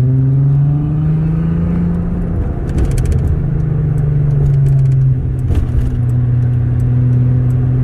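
Volkswagen Jetta GLI's VR6 engine pulling under way. Its pitch rises for about two seconds, drops at what sounds like a gear change, then holds fairly steady with another step down about five seconds in.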